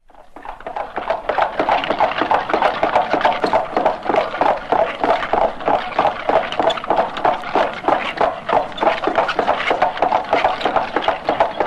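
Horses' hooves clattering in a quick steady rhythm, many hoofbeats a second. It fades in over the first second or so and stops abruptly at the end.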